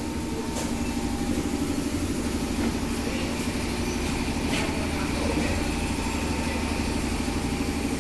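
A machine running steadily, a hum with a fast, even pulse, with a faint click or two.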